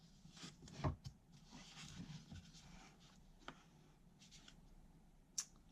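Faint handling of product packaging: hands rubbing and rustling it, with a few light knocks, the sharpest just under a second in.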